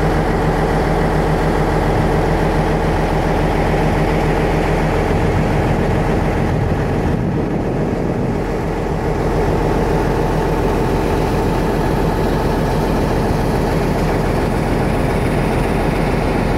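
Caterpillar 988H wheel loader's diesel engine running at steady revs, heard from the cab.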